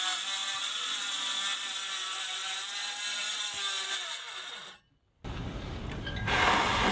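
Circular saw cutting into a boat's fiberglass deck, its motor whining steadily under load. The sound breaks off abruptly about five seconds in, then a rougher cutting noise returns and grows louder near the end.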